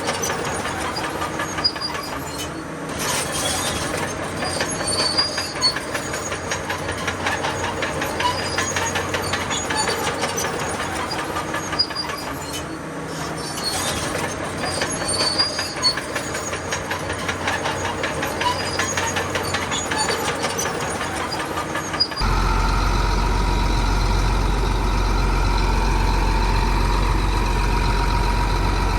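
Crawler bulldozer at work: dense metallic clanking and rattling of its tracks over the running engine. About three-quarters of the way through this cuts off abruptly to a steady low engine drone.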